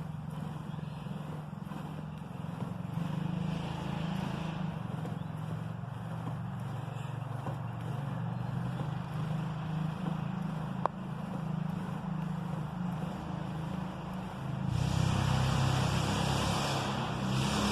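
Steady low motor hum, becoming louder and hissier about fifteen seconds in, with a brief sharp tick a little before that.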